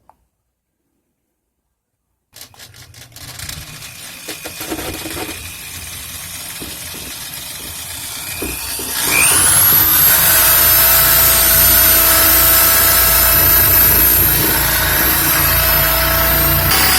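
A power drill with a core (hole-cutting) bit boring a round hole. Scraping and rattling as the bit starts to bite, then from about nine seconds in it runs steadily and loudly with a high whine.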